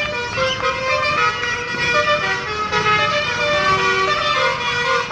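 Basuri telolet bus horn playing a melody of stepped multi-tone notes, over the noise of the bus engine and street.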